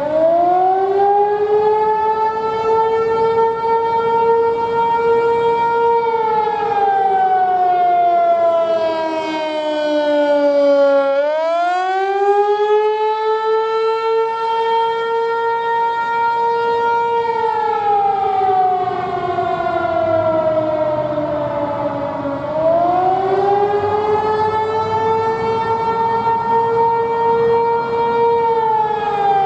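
Outdoor warning siren sounding a wail during a siren test: its tone rises, holds high for a few seconds, then slowly falls, and the cycle begins again about every eleven seconds, three times in all.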